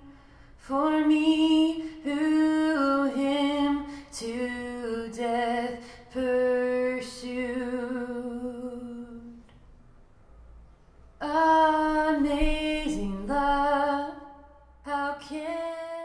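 A solo female voice sings a slow hymn in sustained phrases, with no instruments. It plays back through a pair of small DIY two-way bookshelf speakers built on Dayton Audio ND90 3.5-inch aluminium-cone drivers. The singing breaks briefly about ten seconds in.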